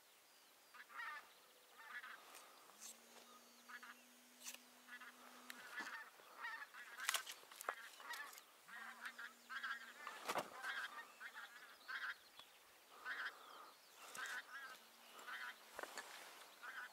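A flock of wild geese calling in flight: many short honks, faint and repeated throughout. A few sharp knocks cut in, the loudest about seven and ten seconds in.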